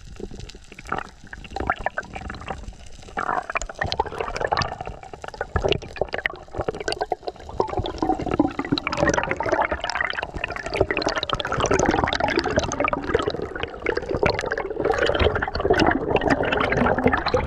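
Water gurgling and bubbling around a camera held underwater on a freedive, with many crackling bubble clicks; it grows louder about halfway through.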